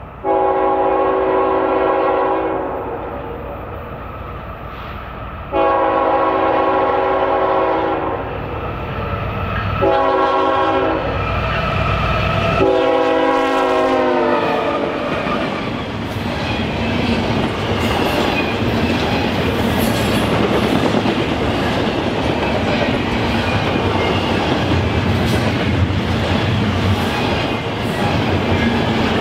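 A locomotive air horn blows the grade-crossing signal: long, long, short, long, with the last blast dropping in pitch as the locomotive passes. The train then rolls by, its wheels clacking steadily over the rail joints.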